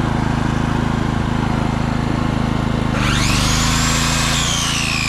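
Honda generator engine running steadily. About three seconds in, an electric power tool powered by it starts with a rising high whine that then sags and climbs again, and the generator's engine note shifts as it takes the load.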